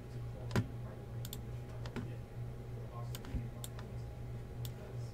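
Irregular, scattered clicks of someone working a computer keyboard and mouse, about a dozen sharp taps over a few seconds, over a steady low electrical hum.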